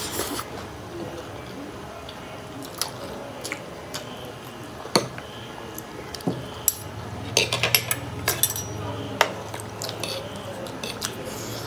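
Metal forks and spoons clinking and scraping against ceramic plates and bowls while two people eat, as scattered sharp clicks that come thickest about seven to nine seconds in.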